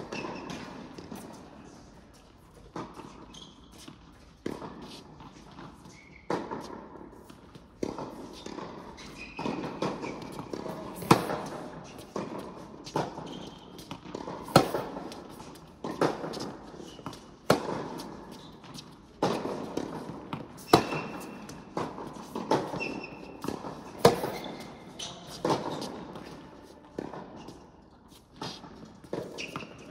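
Tennis rally on an indoor hard court: tennis balls popping off racket strings and bouncing on the court, a sharp hit roughly every second or so, each echoing in the large hall.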